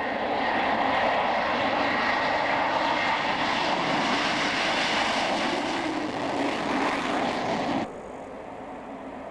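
Panavia Tornado's twin RB199 turbofan jets running loud as the aircraft rolls along the runway: steady jet noise with a thin high whine. The noise cuts off abruptly about eight seconds in, leaving a fainter steady background hiss.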